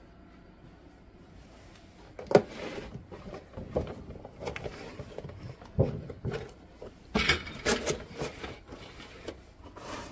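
Handling noise of hard plastic: a clear plastic clamshell container and a plastic folding step stool knocked and set down on a tile floor. A string of separate clunks and clatters, the sharpest about two seconds in, with a quick cluster near eight seconds.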